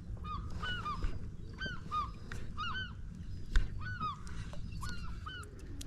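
A flock of birds calling: many short, arched, honking calls, about three a second and often overlapping, over a steady low rumble.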